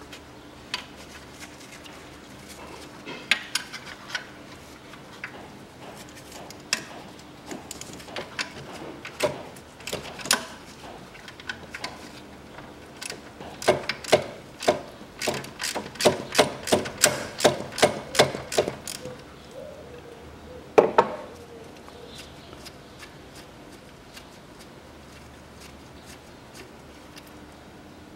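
Ratchet wrench clicking as a nut is backed off the alternator's ground terminal: scattered clicks at first, then a steady run of about four clicks a second, with a single louder metal clank after it.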